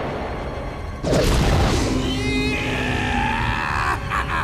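Cartoon explosion sound effect: a deep blast rumble dying away, then a second sudden loud boom about a second in. Dramatic music rises after it.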